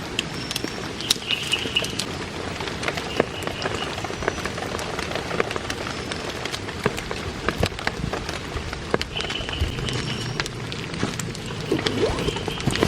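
Heavy rain falling, with many sharp individual drop hits over a steady hiss. A short high call recurs several times in the background.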